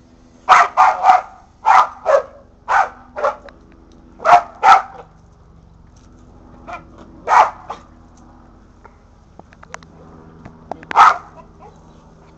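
Kelpie-mix dog barking excitedly at a lawn sprinkler's spray: short, sharp barks in quick groups, two more after a pause, and a last bark near the end.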